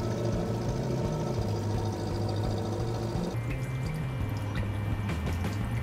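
Water sloshing and dripping, stirred by a Fireman Sam Titan remote-control toy lifeboat moving across the water, over a low steady hum.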